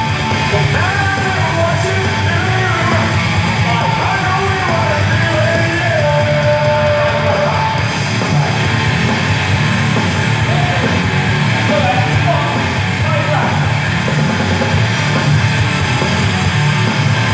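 Loud rock music with singing, steady throughout; the singing voice is clearest in the first half.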